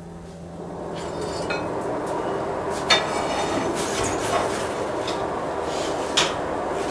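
Forge blower and fire rising to a steady rush during the first couple of seconds, with three sharp metal clinks as a steel rod is worked in the forge fire.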